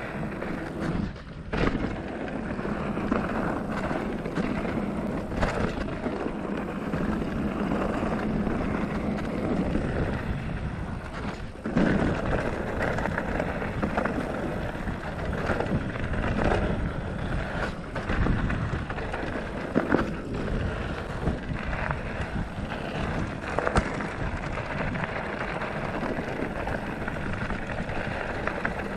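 Felt Decree 3 full-suspension mountain bike rolling fast down a dry dirt trail: steady tyre noise on dirt and loose gravel with wind buffeting the microphone, and sharp knocks and rattles from the bike over bumps several times.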